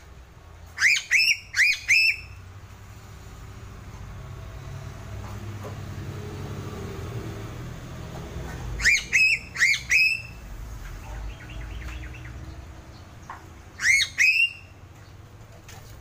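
Piping crow (Sulawesi crow) calling in quick bursts of short, high piping notes, each note rising sharply and then holding. There are three notes about a second in, three more around nine seconds in, and two near the end, over a low background rumble.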